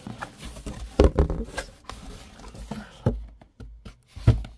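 Large cardboard box being handled and shifted by hand: rubbing and scraping of cardboard with several thumps, the loudest about a second in and others near three and four seconds.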